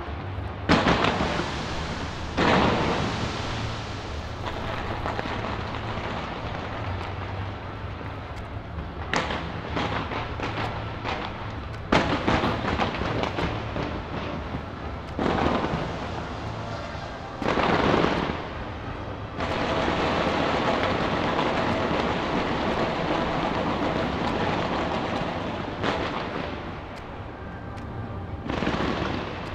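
Fireworks display going off: repeated sharp booms at irregular intervals over continuous crackling and rumble, building into a dense, sustained barrage for several seconds past the middle.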